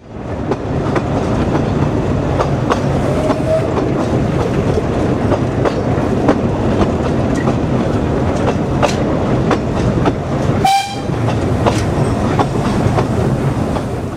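A train running on rails, its wheels clicking over the rail joints under a steady rumble, with a brief whistle blast about ten and a half seconds in.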